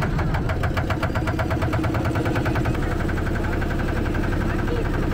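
A passenger boat's motor running steadily just after being started, with a rapid, even beat.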